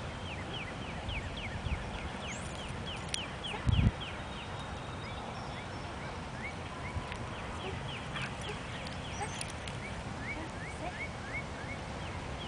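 A bird chirping over and over, several short high chirps a second, over a low wind rumble on the microphone. There is one brief thump about four seconds in.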